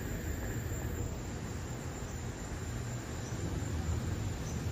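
Wind buffeting the microphone as a fluctuating low rumble, with a faint steady high insect drone behind it.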